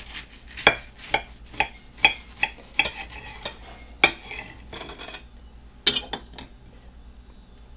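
A large kitchen knife sawing down through a toasted sandwich: a run of crisp crunches of the toast under the blade, two or three a second, for about four seconds. Then, after a short pause, one sharp clack of the knife against a plate.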